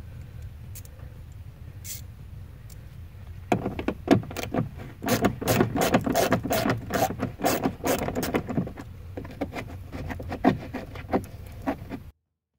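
A hand tool working the fasteners on a car's plastic front fender liner. A run of rapid clicking and rattling starts about three and a half seconds in and goes on for several seconds before thinning out, over a steady low hum. The sound cuts off abruptly near the end.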